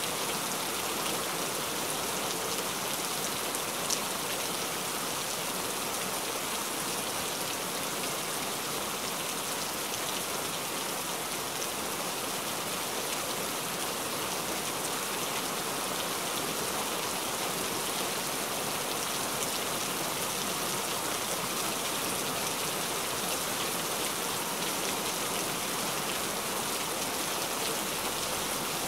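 Steady rain: an even hiss of falling drops with faint scattered ticks of single drops, and one sharper tick about four seconds in.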